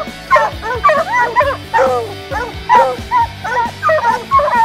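A pack of hounds baying at a tree, several dogs' short excited barks and yelps overlapping, a few a second: the tree bark of hounds that have put a cat up a tree.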